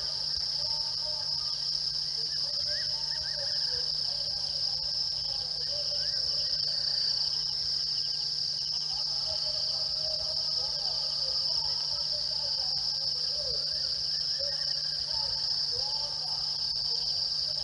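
Steady, unbroken high-pitched night insect chorus, with many short, lower gliding calls scattered through it.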